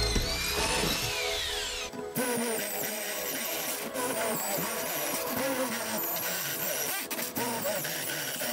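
A corded electric drill's whine falls in pitch as it spins down in the first two seconds. Background music plays throughout.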